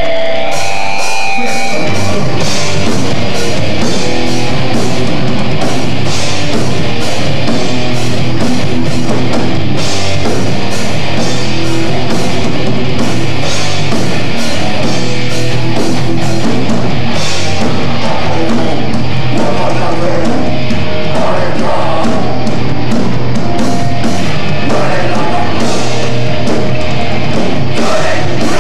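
Live rock band playing loud with electric guitars, bass guitar and drum kit, the full band coming in about two seconds in.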